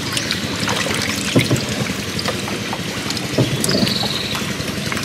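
Water splashing and trickling around a small wooden boat moving on flooded water, with many small irregular knocks and drips.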